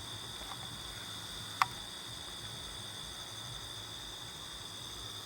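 Steady chorus of insects, crickets among them, shrilling on several constant high pitches. A single sharp click stands out about a second and a half in.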